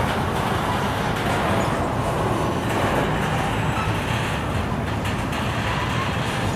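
Freight train rolling past, a steady noise of wheels on rail.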